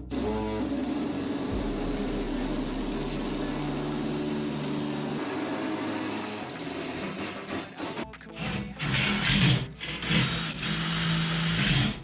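A power tool running in stop-start spells.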